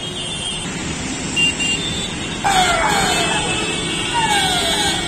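Traffic jam noise of idling vehicles with short car-horn toots. About halfway in, an ambulance siren starts up loud, a wail sweeping downward in pitch over and over, about two sweeps a second.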